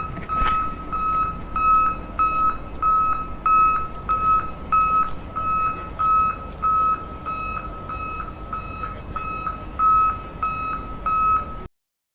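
Electronic beeper sounding a steady string of short beeps at one pitch, about two a second, over a faint low hum; it cuts off suddenly near the end.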